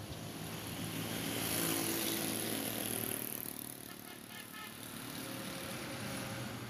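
A motor vehicle's engine running, swelling to its loudest about two seconds in and then easing off, with a short rapid ticking just after four seconds.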